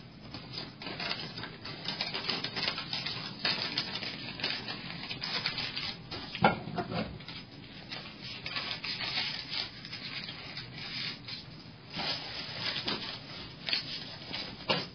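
Continuous crackling, rustling noise, dense with irregular clicks, with a sharper crack about six and a half seconds in.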